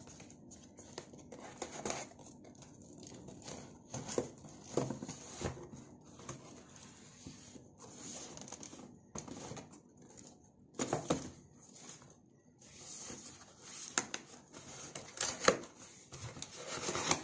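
Packing tape being peeled and torn off a cardboard shipping carton, with cardboard rustling as the flaps are pulled open: a string of short rips, a few louder ones in the second half.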